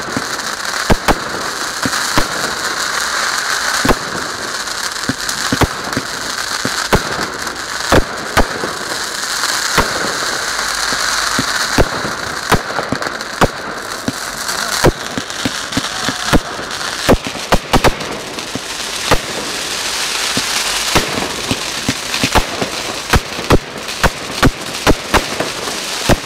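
Aerial fireworks bursting: sharp bangs every second or so over a continuous hiss of burning stars, coming faster and closer together in the last third.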